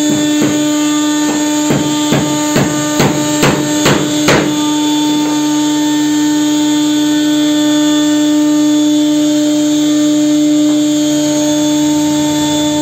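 A hand hammer knocks on a wooden board about ten times in the first four and a half seconds, the blows coming closer together toward the end. Under it the CNC router's electric spindle gives a steady high whine.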